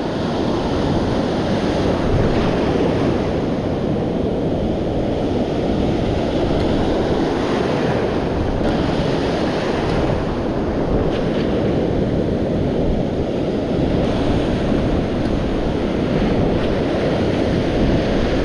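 Ocean surf breaking close by and foam washing up the beach, with wind rumbling on the microphone; a steady, unbroken rushing.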